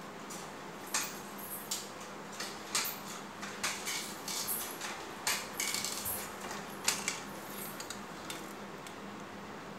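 Metal forearm crutches clicking and clinking irregularly as they are lifted and set down on a stone floor with each step, busiest from about one to seven seconds in.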